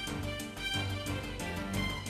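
Instrumental music with a steady beat and a bass line.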